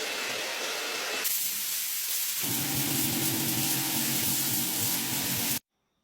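A loud, steady hiss; about two and a half seconds in a low, pitched hum joins it, and both stop abruptly near the end.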